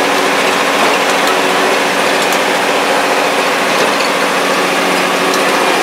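A converted fire truck's engine running as it drives along a track, heard from inside the cab: a steady drone over road noise.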